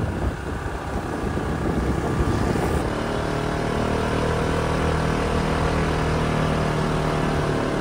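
Wind buffeting the microphone, then from about three seconds in a motor scooter's engine running at a steady speed, with wind rush, from a camera on the moving scooter.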